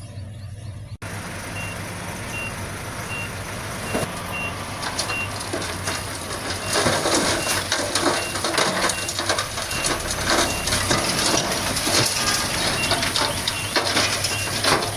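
Reversing alarm on heavy earthmoving machinery beeping at an even pace, a bit more than once a second, over a diesel engine running steadily. From about seven seconds in, a louder rough grinding noise comes in under the beeps.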